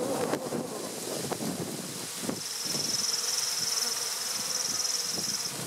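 Honey bees buzzing at an open hive, with single bees flying close by in short rising and falling buzzes. From about two and a half seconds in, a high, fast-pulsing trill sits over the buzzing for about three seconds.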